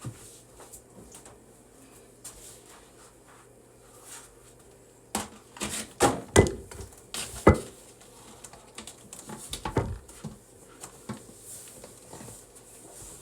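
Eating sounds: a run of clicks and knocks, with a cluster of louder sharp knocks about five to eight seconds in and a smaller group near ten seconds.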